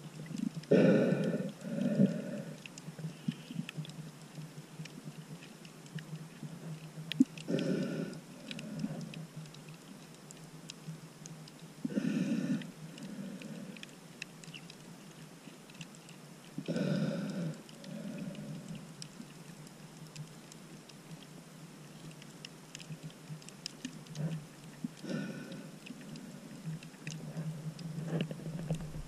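Muffled underwater breathing of a snorkeler through a snorkel, one breath about every four to five seconds, over a steady faint crackling and ticking in the water.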